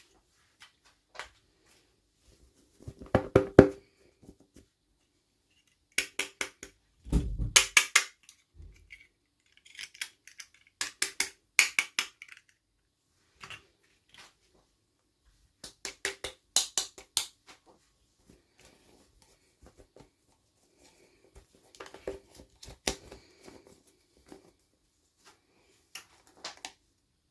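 Toy packaging being torn and crinkled open by hand, in about six short bursts of sharp clicks and rustles with quiet pauses between.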